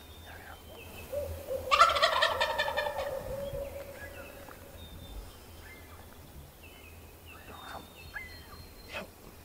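A wild turkey tom gobbles once, close and loud, starting about a second in: a rapid rattling call that lasts about two seconds. Faint songbird chirps are heard around it.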